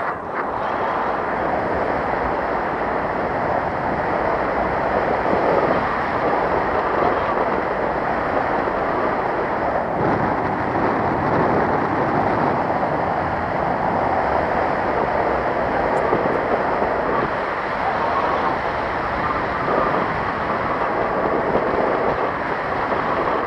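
Steady rushing of wind over the camera's microphone in flight under a paraglider.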